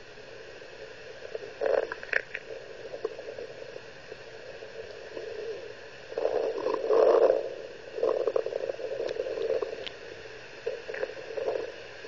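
A girl's stomach gurgling, picked up close on the belly through an amplifying listening device: irregular gurgles over a steady hiss, the longest and loudest about six to seven and a half seconds in.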